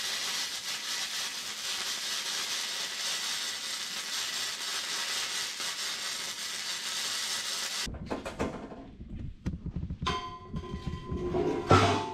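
Arc welding on steel: a steady crackling hiss for about eight seconds that cuts off suddenly, the welder tacking the cannon's steel parts together. Then scattered metal knocks and clanks, with one loud clang near the end.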